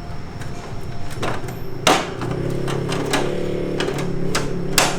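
Plastic and wire parts of a Vision bird cage knocking and clicking together as the cage door is handled and fitted, with several sharp knocks, the loudest about two seconds in.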